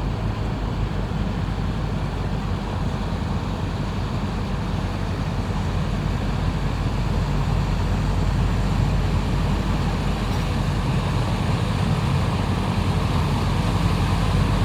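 A boat's engine running steadily, a low drone that grows slowly louder toward the end as the vessel draws nearer.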